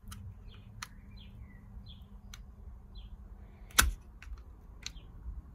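Scattered light plastic clicks as fingers press the release tabs of a clip on a swirl-flap actuator motor, with one sharper click a little before four seconds in. Faint bird chirps in the background.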